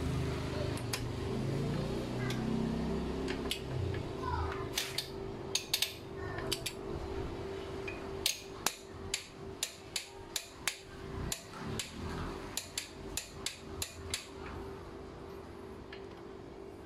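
Sharp metallic clicks and knocks of a wrench and socket being worked on a bolt at a car's front wheel hub, coming irregularly and getting quicker in the middle, about two a second.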